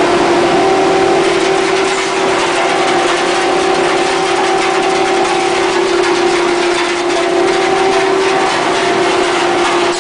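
Ball fiber pillow filling machine running: a loud, steady rushing of its blower fans and air ducts, with a constant hum.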